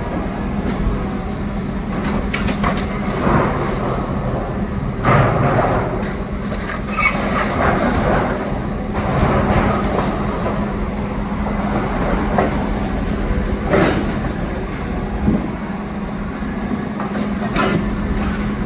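Excavator's diesel engine running steadily under load, with irregular crunches, knocks and clatter of demolition rubble being broken and moved.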